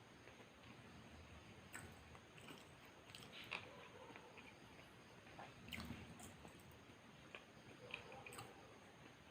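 A person chewing and biting a burger, faint, with soft wet mouth smacks and clicks coming at irregular moments.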